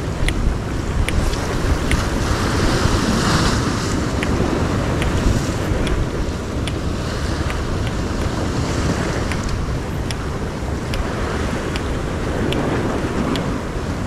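Ocean surf washing on a rock shore, swelling every few seconds, under steady wind noise on the microphone. Faint sharp clicks come through about once a second.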